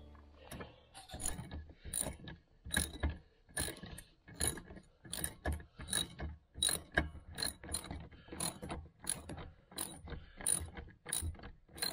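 Hand socket ratchet clicking in a steady run of short clicks, about two or three a second, as bolts are tightened.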